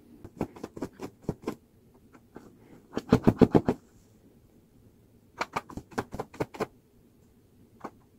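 A black Ogye chicken pecking at apple pieces: runs of sharp beak taps, the densest run about three seconds in, with a last single tap near the end.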